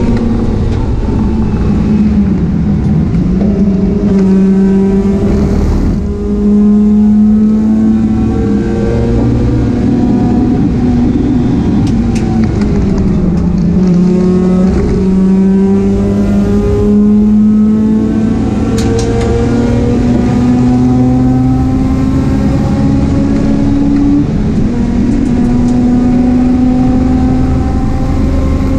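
Mazda RX-8 race car with CNC heads at full throttle: the engine pitch repeatedly climbs and drops back at each gear change. Around the middle the pitch falls away for a moment, then it pulls up through the gears again.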